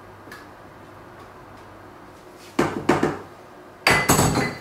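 Glass stand-mixer bowl being handled and set down on the counter: two sharp clunks about a second apart, the second with a brief glassy ring.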